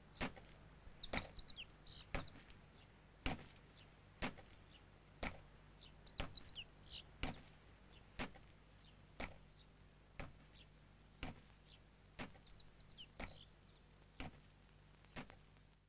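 Faint ambience of birds chirping in a few short bursts, over sharp ticks that come about once a second, evenly spaced, with a low steady hum underneath.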